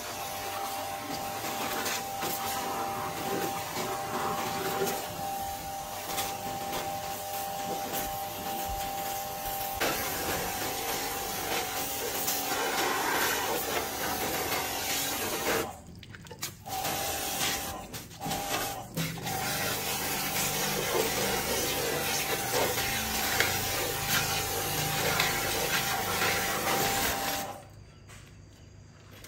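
Pressure washer jetting water onto a rusty tractor's engine and front frame: a steady spraying hiss with a steady whine underneath. The spray stops briefly twice around the middle and cuts off near the end.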